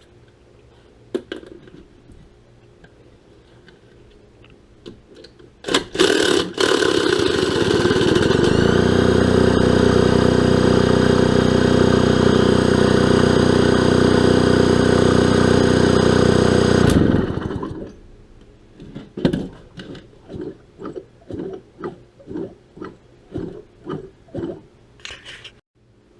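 A vintage McCulloch 300 chainsaw engine, just freed from seizure and wet with fresh fuel mix, being spun over to loosen its bearings. A loud, steady whirring run of about ten seconds rises in pitch once early on and stops abruptly. After it come about a dozen short, rhythmic whirs.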